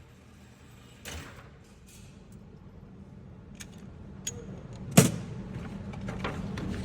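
Pistol shots at a shooting range: a fainter report about a second in, a few small clicks, then one loud, sharp shot about five seconds in.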